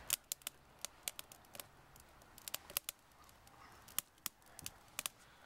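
Small wood fire crackling: scattered sharp pops and snaps at irregular intervals.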